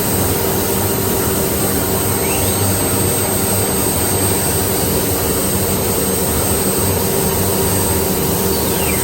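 CNC wood router running: a steady machine noise of the high-speed spindle and vacuum hold-down pump, with a faint whine that rises about two seconds in and falls away near the end.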